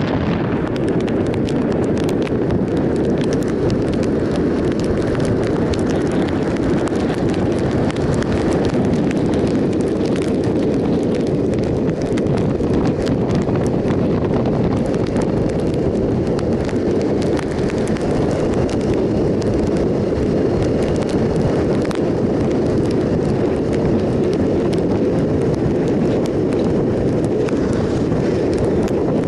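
Triumph Sprint ST 1050 motorcycle riding at road speed: a steady rumble of wind buffeting the microphone, mixed with engine and tyre noise on wet tarmac.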